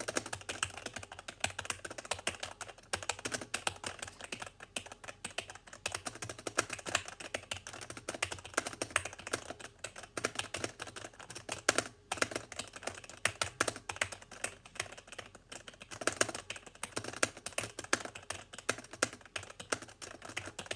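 Fast, continuous typing on a non-mechanical Logitech gaming keyboard whose keys give a clacky click that sounds like a mechanical keyboard. There is a brief pause about twelve seconds in.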